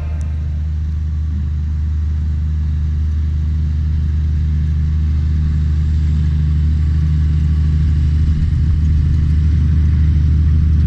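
Case MXU 125 tractor's engine running steadily as it pulls a power harrow across the field, a deep, even drone that grows slowly louder as the tractor draws near.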